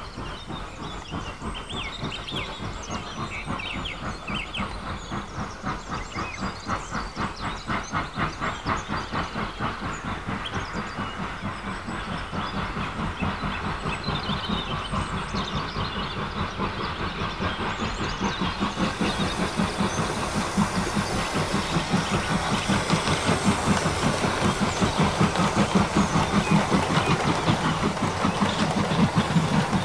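OO gauge model train (Sonic Models LNER A5 tank locomotive hauling teak coaches) running on the layout track: a fast, even clicking of wheels over the rail joints, growing louder as the train comes closer. A hiss joins in about two-thirds of the way through.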